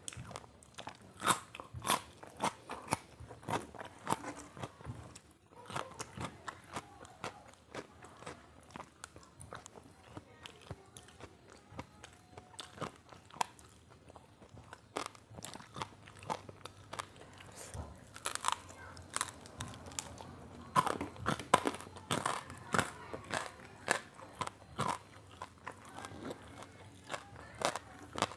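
A person biting and chewing crunchy food close to the microphone: a steady run of crisp, irregular crunches and mouth noises, denser and louder in the second half.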